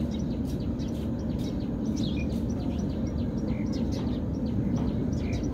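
Background noise with small birds chirping over it: a steady low hum under many short, high chirps repeating throughout.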